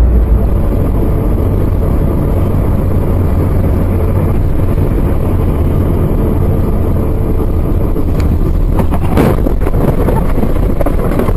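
A moving vehicle's steady, loud rumble of road and wind noise on the microphone, with a short cluster of knocks about nine seconds in.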